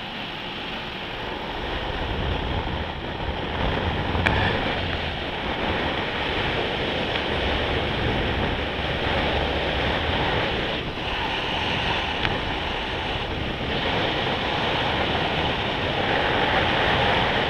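Steady wind rushing over the camera microphone of a moving motorbike, mixed with engine and road noise, swelling a little in level now and then.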